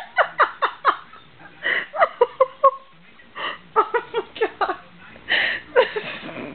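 A woman laughing helplessly, runs of short falling 'ha' sounds in several bouts with breaths between.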